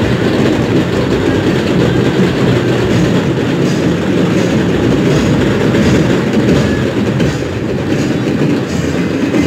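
Loud, steady din of a dense, jostling crowd, heard as a dull unbroken rumble with no words standing out.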